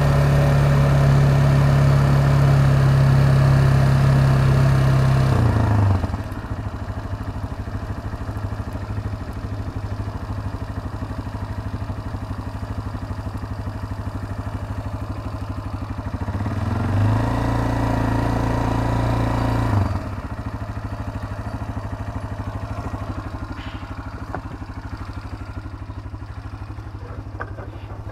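K-Lion Commander 200 ATV's engine running on the throttle, then easing off about six seconds in to a lower, quieter run. It picks up again for about three seconds past the middle, drops back, and keeps running low and steady, with a few light clicks near the end.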